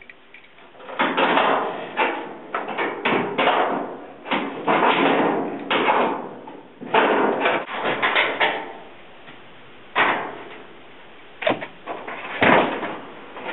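Irregular knocks, bangs and clatter of the dryer's sheet-metal cabinet and parts being pushed, pulled and knocked against during disassembly, about a dozen strikes of varying loudness.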